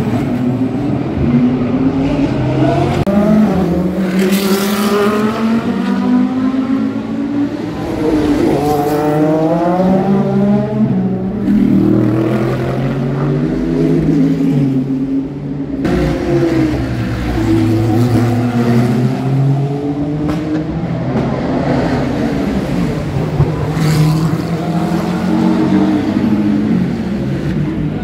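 Race car engines revving hard as the cars pass one after another. The pitch keeps climbing through the gears, drops at each shift and falls away under braking, with several engines overlapping.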